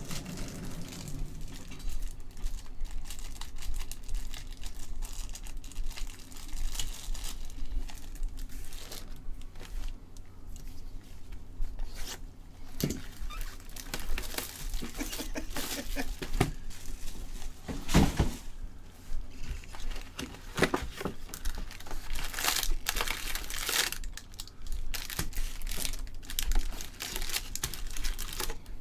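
Gloved hands opening a cardboard Bowman Jumbo hobby box and handling its foil card packs: irregular crinkling and crackling of foil wrappers and cardboard, with a louder sharp crackle about two-thirds of the way through.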